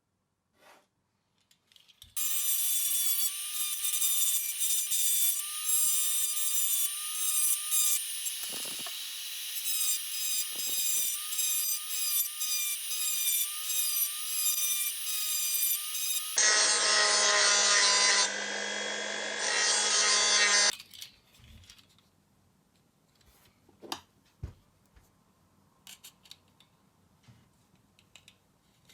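A small power tool running steadily for about fourteen seconds with a slightly wavering whine, then abruptly a different machine sound for about four seconds; after it stops, a few light clicks and taps from handling.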